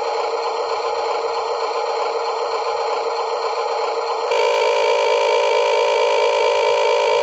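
Steady whirring hum from a toy's small electric motor, with a fast, even wobble in pitch. About four seconds in it cuts abruptly to a louder, brighter version of the same hum.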